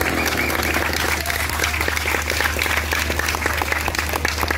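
A crowd applauding, many hands clapping at once, over a steady low hum.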